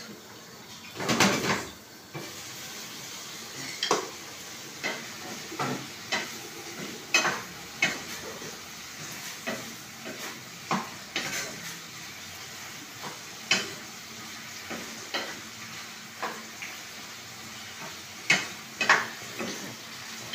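Cookware clatter: a wooden spatula knocking and scraping in a stone-coated frying pan as vegetables are stirred, with a glass lid handled. Irregular knocks about once a second, with a longer clatter about a second in, over a low steady sizzle of frying.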